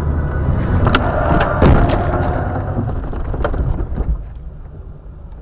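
Road collision heard from inside the dashcam car: a cluster of loud bangs and crunching about a second in, another bang a couple of seconds later, over a heavy rumble and rattling that dies down after about four seconds.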